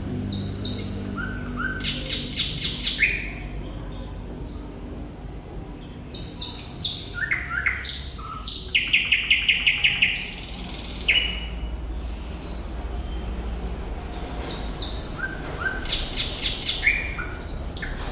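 Thrush nightingale singing: loud phrases of sharp, rapidly repeated notes and rattling trills mixed with short clear whistles, in three bursts, near the start, in the middle and near the end.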